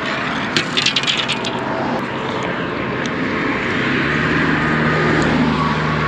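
Steady engine drone of passing motor traffic or aircraft, with a low hum that sets in and grows a little louder about four seconds in. A quick run of clicks sounds about a second in.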